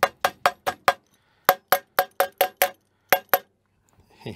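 Light metal-on-metal hammer taps, about four or five a second, in three quick runs with short gaps, each with a brief ring. A small hammer is knocking a tight aluminium bracket into place on a 3D-printer frame where it is pinching.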